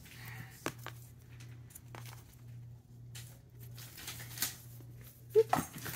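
Handling noise from plush catnip cat toys and their cardboard backing card: scattered rustles and a few short, sharp snaps as the toys are pulled free and handled. A louder cluster comes near the end.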